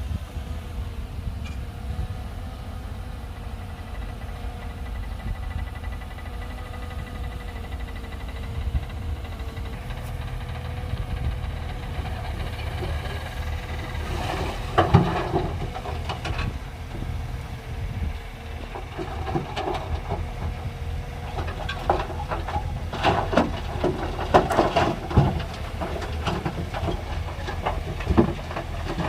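Shantui DH17C2 bulldozer's diesel engine running with a steady low drone. From about halfway through, bursts of clanking and cracking come and go over it.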